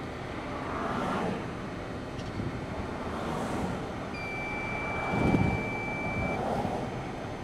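Wind rushing over the microphone, with a stronger gust about five seconds in. A single steady high-pitched tone sounds for about two seconds, starting around four seconds in.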